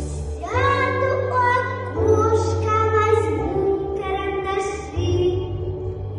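A female voice singing a melody in long held notes over an instrumental backing track with a steady bass line.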